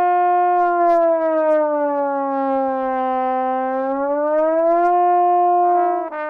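Slide trombone holding one long, loud note and using the slide to bend it slowly down by a few semitones and back up again. Near the end it moves into shorter notes.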